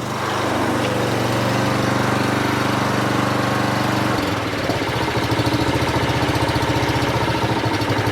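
Honda HRX217 lawn mower's single-cylinder four-stroke engine running steadily just after a pull start, with the blade off; about four seconds in its note changes to a pulsing beat. It is starting and running normally on a newly fitted throttle cable.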